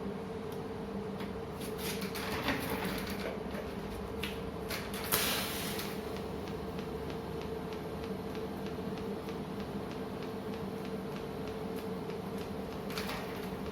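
Welding rotator's drive running with a steady hum and an even, light ticking, broken by two short hissing bursts in the first half.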